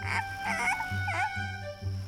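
Cartoon background music with a steady low beat and held tones, over which two short cartoon vocal noises dip and rise in pitch, about half a second and just over a second in.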